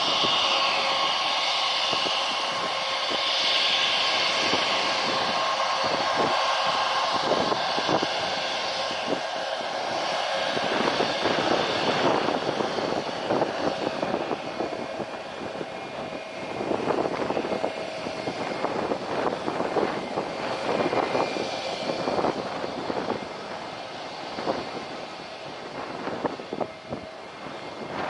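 Jet airliner's engines running close by. A high whine over a steady rush fills the first ten seconds or so, then gives way to a rougher, gustier rumble.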